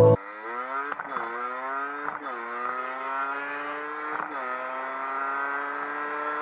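HM Baja 50's 50cc two-stroke engine accelerating through the gears. Its pitch climbs, drops at three upshifts about one, two and four seconds in, and climbs again after each.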